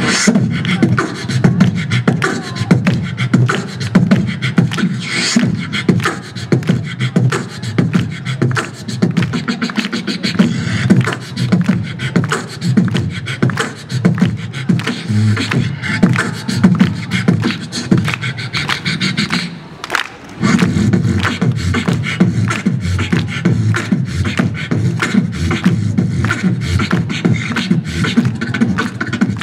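A man beatboxing into a handheld microphone through PA speakers: a fast, steady beat of sharp clicks and drum-like hits over a deep bass line, breaking off briefly about two-thirds of the way through before picking up again.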